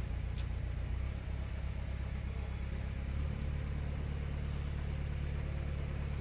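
A vehicle engine running steadily, its note shifting about a second in and again about three seconds in.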